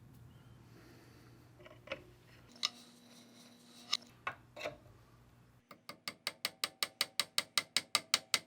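A few separate clicks and knocks, then a fast, even run of ratchet clicks, about six a second, growing louder toward the end.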